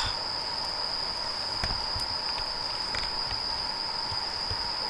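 Crickets trilling steadily, heard as one unbroken high tone, with a few faint clicks over it.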